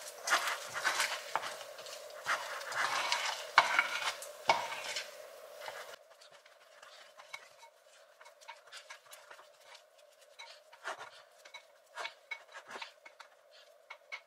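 Spoon stirring and scraping a thick mix of cooked oats and cocoa powder in a glass bowl, with small clinks against the glass. Busy and steady for about the first six seconds, then softer, sparser scrapes.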